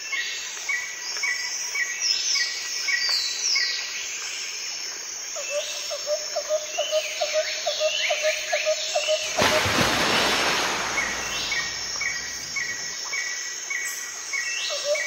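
Forest ambience of several birds calling: a repeated short chirp, quick falling whistles and, in the middle, a fast run of repeated notes. From about nine seconds in, a loud even rushing noise comes in under the calls.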